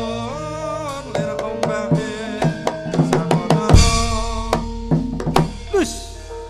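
Live Javanese gamelan music: rapid kendhang hand-drum strokes over steady ringing metallophone notes. A deep gong stroke lands about three and a half seconds in and rings on.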